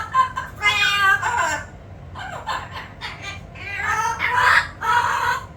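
Amazon parrot calling: a high pitched call in the first second and a half, then harsh, rasping squawks near the end.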